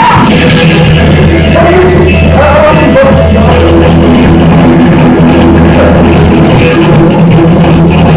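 Punk band playing live at a sound check, very loud: distorted electric guitar over a held bass note, with drums and cymbals.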